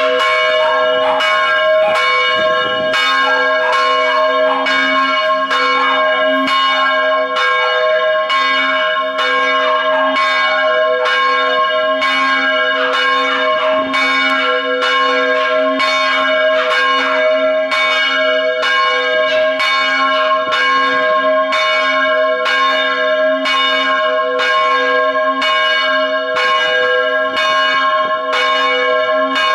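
Church bell ringing with steady, evenly spaced strokes, a little more than one a second, each stroke's ring running on into the next.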